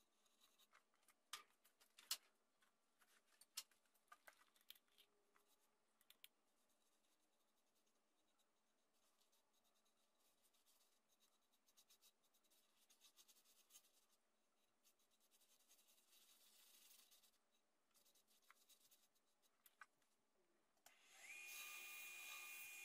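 Faint scratching and rubbing with a few sharp clicks in the first few seconds. Near the end an electric power-tool motor starts up, its whine rising briefly and then running steadily.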